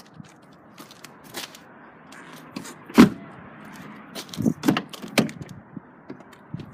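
Scattered clicks and knocks from a Volkswagen Golf's door being handled, the loudest a single thunk about three seconds in.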